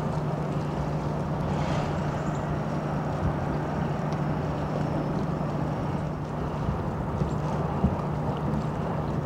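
Tugboat's diesel engine running steadily, a low even drone.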